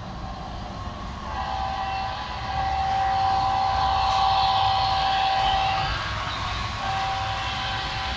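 HO scale model train running past on the layout track, with a rolling rumble and hiss. A steady high tone is held for about four and a half seconds, stops briefly, then comes back near the end.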